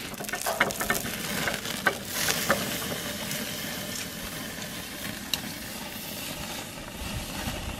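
Meat sizzling on the grate of a gas barbecue grill over open flames, a steady hiss with a few sharp pops and crackles in the first couple of seconds.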